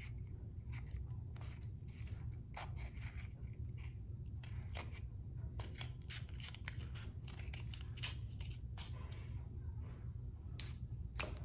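Scissors cutting through a painted cardboard toilet paper roll: many short snips at an uneven pace, over a faint low hum.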